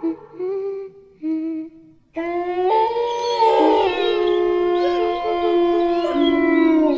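Eerie horror ringtone: a few short, separate high notes, then from about two seconds in a dense held chord of several sustained tones, some sliding in pitch.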